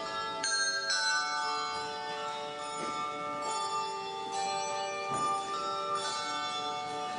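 Handbell choir ringing chords: several bells sound together, a fresh chord is struck about once a second, and each rings on under the next.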